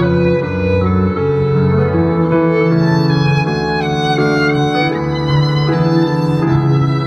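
Violin and contrabass duo playing live: the violin bows a sustained melody over a low double-bass line, the notes changing about once a second.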